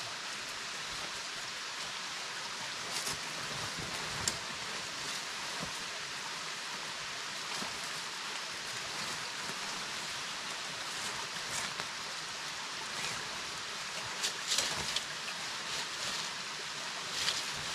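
Steady rushing of a rocky stream and small waterfall, with a few brief clicks and rustles scattered through, the clearest ones near the end.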